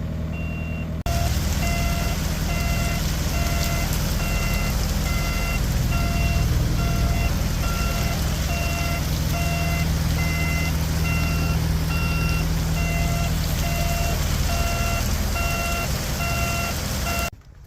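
Backup alarm on heavy diesel equipment beeping steadily, about once a second, over a diesel engine running.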